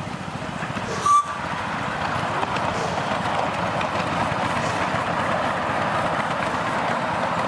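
Ride-on miniature steam locomotive hauling passenger cars past, a steady running and rumbling noise from the engine and wheels on the track that grows louder as it approaches. A brief loud high tone sounds about a second in.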